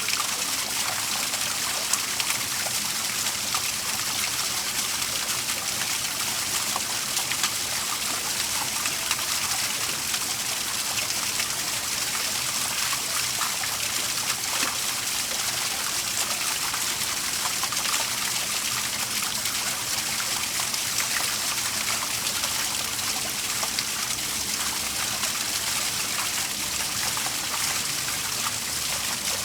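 Waterfall: water falling and splashing in a steady rushing hiss, brightest in the high end, with small splashes scattered through it.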